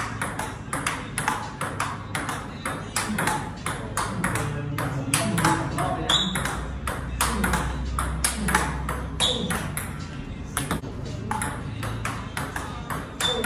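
Table tennis ball struck back and forth by rubber-faced paddles and bouncing on the table in rallies: a steady run of sharp ticks, a few a second. Faint voices can be heard in the middle.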